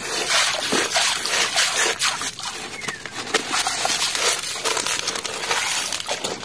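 Wet gravel rattling and scraping as a hand rakes through it in a plastic toy dump truck's bed, with shallow water sloshing and splashing around it. Near the end the bed tips and the gravel spills out into the water.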